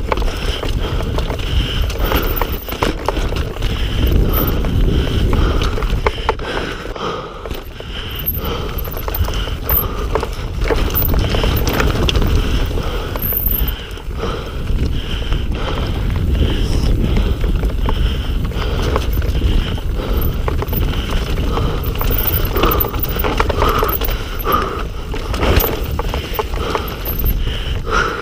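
Mountain bike descending a rocky downhill trail: a constant clatter and rattle of tyres and frame over rock, with a heavy low rumble underneath.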